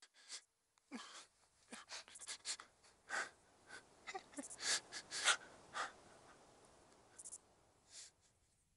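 A young person crying, with irregular gasping, sobbing breaths that come thickly for several seconds and then thin out near the end.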